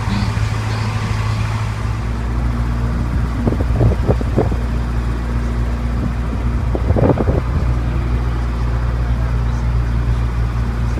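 Steady low engine drone of a tourist tram, heard from on board. Two short louder bursts break in, about three and a half and seven seconds in.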